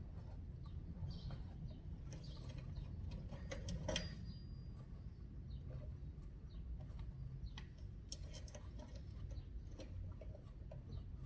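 A rag wiping out the Yamaha TT-R50's air box after cleaner was sprayed in, giving scattered light clicks and scuffs, with one sharper knock about four seconds in. A steady low hum and faint short high chirps run underneath.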